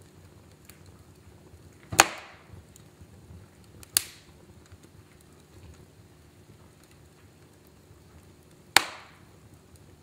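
Logs burning in a fireplace: a faint, steady low crackle with small ticks, broken by three loud, sharp pops of burning wood, about two seconds in, two seconds after that, and near the end.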